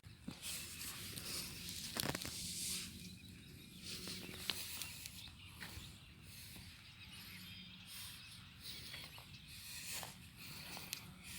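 Outdoor ambience: a soft rustling hiss that swells and fades, with a few sharp clicks about two and four and a half seconds in.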